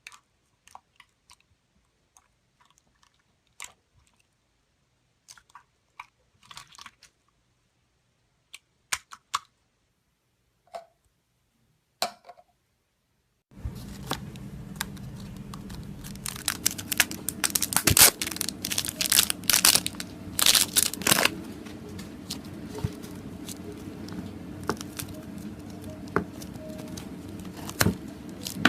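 Slime being squeezed and worked by hand, giving sparse, sharp crackling and crunching pops. About thirteen seconds in, a steady background hum comes in, and the crackles become denser and louder.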